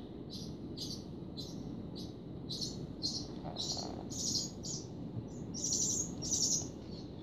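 A barn swallow nestling, about four days old, giving a run of short, high begging chirps, about two a second, growing louder in the second half.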